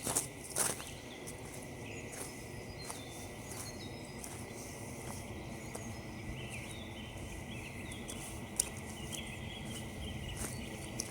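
Footsteps crunching on frozen leaves and frosty ground: two louder steps at the start, then softer steps at an even walking pace. Small birds chirp faintly in the background.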